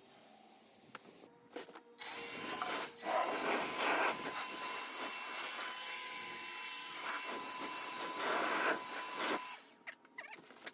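Garden hose spray nozzle washing down a driveway: a steady rushing hiss of water that starts about two seconds in, dips briefly, surges a couple of times and stops shortly before the end, with a faint steady whistle over it.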